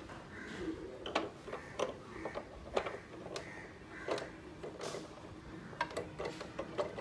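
Irregular plastic clicks and knocks as the PET bottle is fitted onto the nozzle of a Mr Butler soda maker and pushed into position in the machine.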